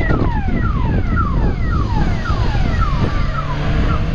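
A vehicle's electronic warning alarm sounding a falling chirp about twice a second, fading away near the end, over a heavy low rumble.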